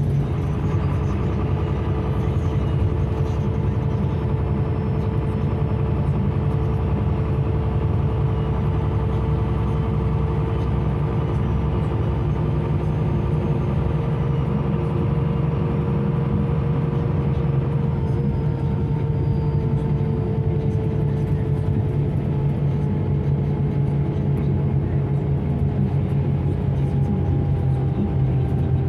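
Karosa C955 Récréo bus heard from inside the cabin while driving: a steady low diesel engine and road drone with a higher steady whine over it, its pitch dipping slightly about two-thirds of the way through.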